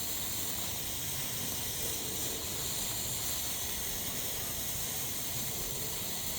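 Small novelty firework spraying sparks with a steady hiss.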